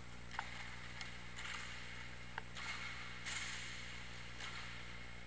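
Distant inline hockey play echoing in a large hall: a few sharp clacks of sticks and a plastic puck, with a stretch of scraping noise in the middle, over a steady low hum.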